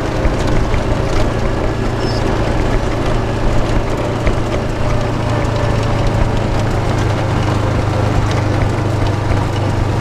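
Steady low engine hum and cabin noise of a vehicle being driven across a paddock, heard from inside the cab, with scattered small knocks and rattles.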